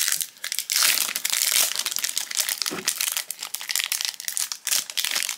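Foil booster-pack wrapper crinkling and crackling as hands tear it open and pull it apart, with dense bursts of sharp crackles loudest in the first two seconds.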